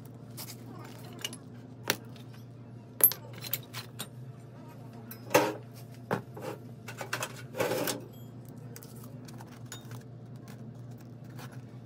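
Steel CV-joint axle shaft and joint piece being handled and set down, with sharp metal clinks and knocks and two longer clattering rattles, over a steady low hum.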